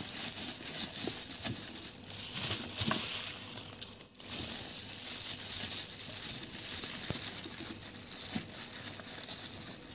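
Clear disposable plastic glove crinkling and rustling as a hand presses olives and grated carrot down into a glass jar, with small crackles throughout and a brief break about four seconds in.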